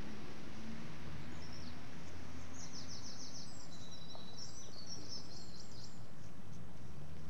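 A small bird chirping and trilling in quick high notes for a few seconds, over a steady low rumble and hiss of background noise.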